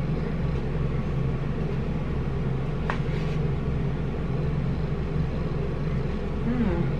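Steady low hum, with one short click about three seconds in.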